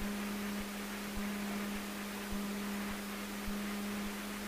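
Steady hum with a hiss underneath in the cockpit of a Cessna 150 idling, its propeller turning slowly.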